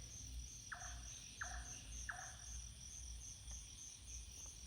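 Faint night chorus of crickets, a steady pulsing high trill. Three short falling calls, about two-thirds of a second apart, sound over it in the first half.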